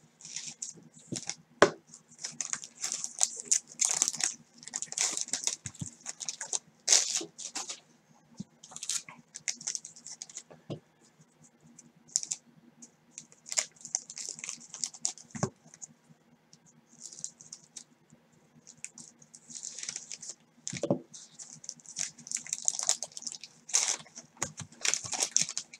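Scissors snipping open a 1989 Score football card pack, then the pack's wrapper crinkling and rustling in gloved hands as it is pulled open and the cards are taken out. The crinkling comes in bursts with small clicks, over a faint low hum.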